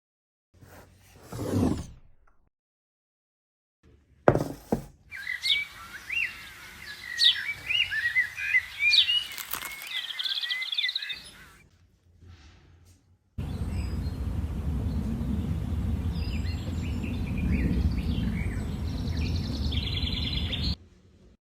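Birds chirping for several seconds. Around them are separate short bits: a falling whoosh near the start, a sharp click, and later a steady low rumble lasting about seven seconds that stops suddenly.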